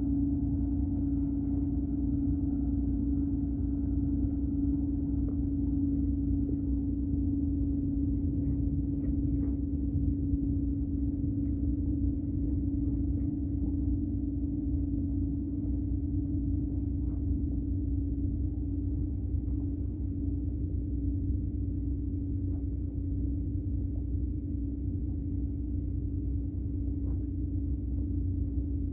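Ferry engine droning steadily: a constant low hum with one strong held tone over a deep rumble, with a few faint ticks.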